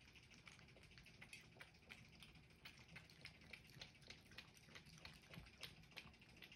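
Domestic cat lapping water from the bowl of a sink: faint, quick wet clicks about three or four a second.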